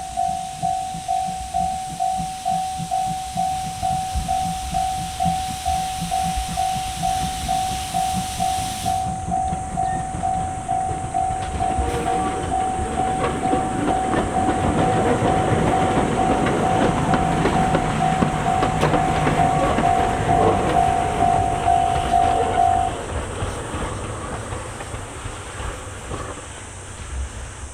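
A railway level-crossing alarm ringing a steady tone about twice a second, then stopping about 23 seconds in. From about 12 seconds a train rolls past with rising wheel clatter and rumble, loudest shortly before the alarm stops.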